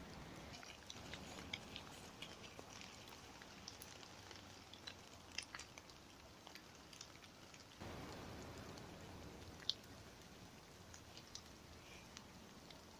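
Near silence: faint forest ambience with scattered soft ticks, and a faint hiss for a couple of seconds around the middle.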